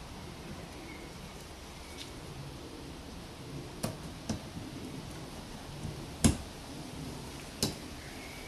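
A few short, sharp plastic clicks as a wiper blade's clip is worked onto the wiper arm, the loudest about six seconds in, over a steady background hiss.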